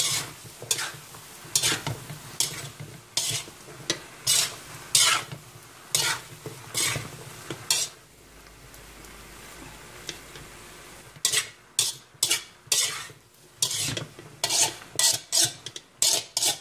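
A utensil scraping and stirring through sizzling zucchini, bell pepper and corned beef in a frying pan, in repeated strokes about one to two a second. Midway the stirring stops for about three seconds, leaving only a steady sizzle, then resumes with quicker strokes.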